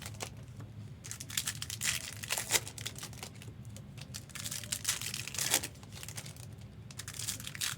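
Crinkling of Topps Chrome trading-card pack wrappers being handled and torn open, coming in three bouts about a second in, near the middle and near the end.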